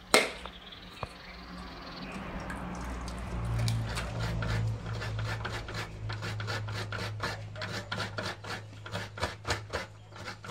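Hands rubbing and crumbling grated coconut against the inside of a steel bowl: a quick run of short, scratchy rubs that grows busier in the second half. A low steady hum runs underneath, and there is one sharp knock at the very start.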